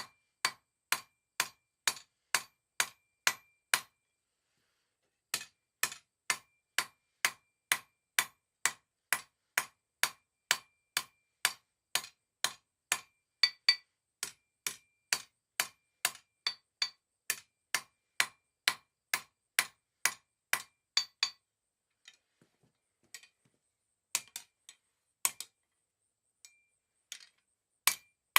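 Blacksmith's hammer striking a 1/2 inch mild steel bar on an anvil in a steady rhythm of about two blows a second, each with a short bright ring, with a brief pause about four seconds in. After about twenty-one seconds the blows thin out to a few scattered light taps and strikes.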